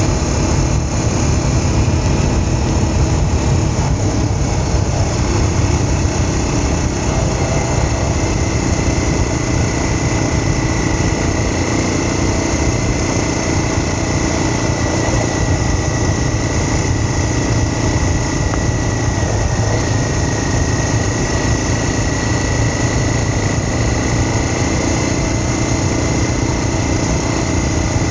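Steady engine and road noise of a vehicle under way, with a faint high whine that appears partway through.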